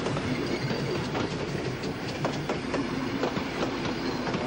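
Train wheels clattering over rail joints: a steady rumble with irregular sharp clicks, heard from aboard the moving carriages.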